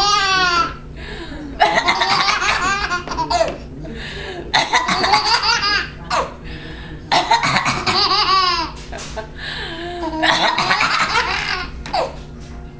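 A little child giggling in about five bursts of high-pitched laughter, with short pauses between them.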